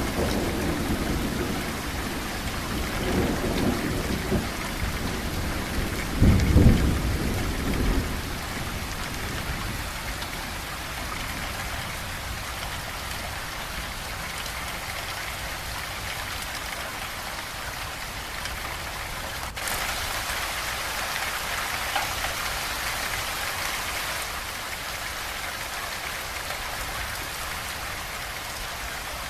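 Steady rain falling, with rolling thunder rumbling through the first several seconds, loudest about six seconds in, then dying away to leave the rain alone.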